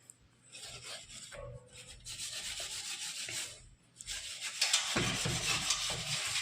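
Scrubbing: a pad or brush rubbed hard back and forth over a kitchen surface during cleaning, in three spells with short pauses, the last and loudest starting about four seconds in.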